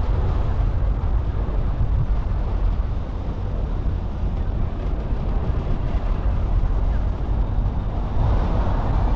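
A moving car's steady road and engine rumble, growing louder for a moment about eight seconds in.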